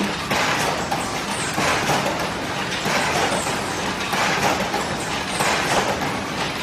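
Hinge joint field fence machine running, a loud steady mechanical din that swells about once a second with its working cycle.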